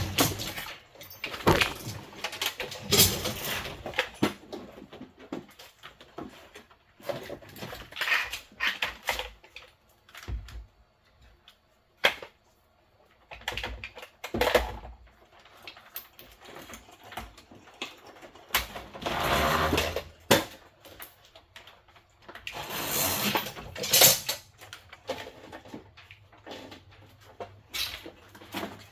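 Irregular knocks, clunks and scraping as a homemade fire alarm control panel is worked loose and lifted down off the wall, with a few longer rubbing and rattling stretches.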